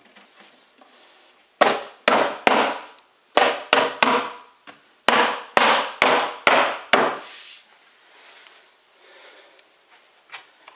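About a dozen heavy knocks in quick clusters on the particleboard panel of an IKEA Expedit cube bookcase, seating the bottom panel down onto its dowels, each knock followed by a short ring through the hollow cube unit.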